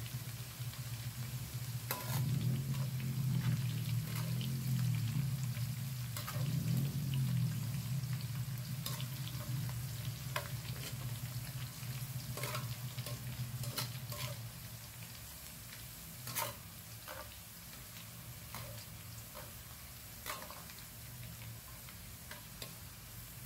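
Sliced onions deep-frying in hot oil in a wok: a steady sizzle with scattered sharp clicks as a slotted metal spoon stirs them. The sizzle is quieter from about fourteen seconds in.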